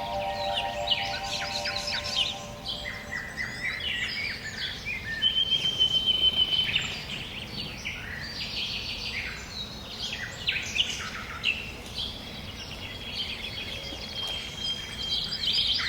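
A chorus of many songbirds chirping and calling over one another in quick, short phrases. Twice a single long held high note stands out: about five seconds in and again near the end.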